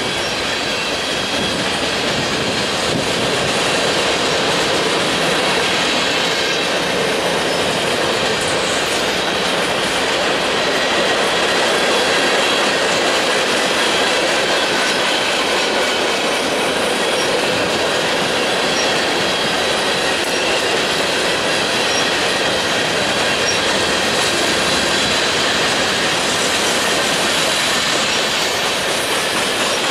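Freight train cars rolling steadily past: the continuous noise of steel wheels on rail, with a thin high squeal from the wheels.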